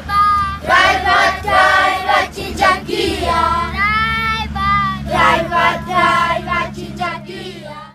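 A group of children singing a song together, with a low steady hum beneath; the singing fades out near the end.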